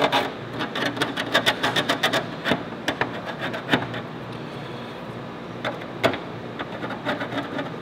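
Pencil scratching and tapping on a plastic patch pressed against a plastic sign housing: a quick run of small clicks and scrapes for about three seconds, then a few scattered clicks, with another short cluster near the end.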